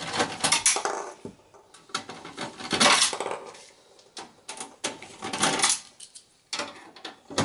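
Screwdriver backing the power-supply mounting screws out of the steel rear panel of a Dell Optiplex 9010 tower case: several bursts of metallic clicking and scraping, with small clinks as the screws come free.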